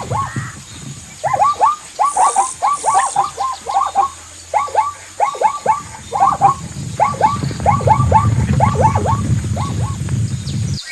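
Zebra braying: runs of short, high yelping calls, several a second, with brief pauses between the runs.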